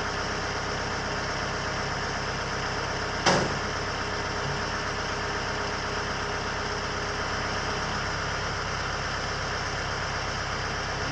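An engine running steadily at idle, with one sharp clank about three seconds in.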